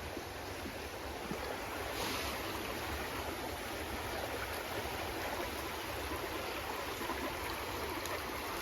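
Small stream flowing steadily, its water running fairly full.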